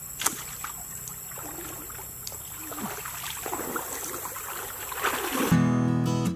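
Water sloshing and trickling in a shallow stream as a man stands and moves in it, with one sharp snap about a quarter-second in and a few fainter clicks. Acoustic guitar music starts abruptly near the end.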